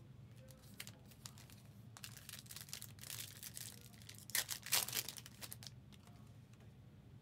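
Foil trading-card pack wrapper crinkling and tearing as it is opened: a run of scratchy rustles starting about two seconds in, loudest a little past the middle, then dying away.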